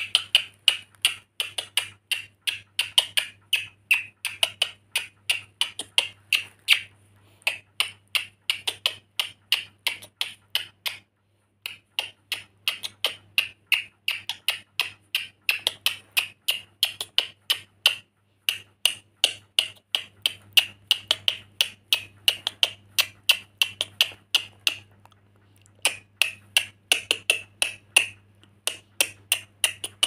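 A lorikeet giving rapid, repeated short, sharp chirps, about four a second, with a couple of brief pauses.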